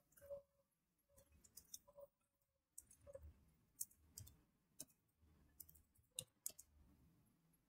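Faint, irregular keystrokes on a computer keyboard: about twenty scattered clicks as text is deleted and typed.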